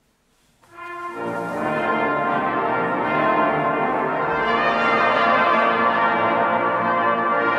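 Instrumental music begins about half a second in, a single low note joined within a second by a full chord of sustained notes that then holds steady.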